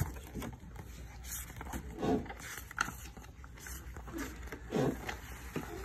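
Pages of a glossy picture book being turned, with paper rustling. Two short, low voiced sounds fall in pitch, about two seconds in and again near the end.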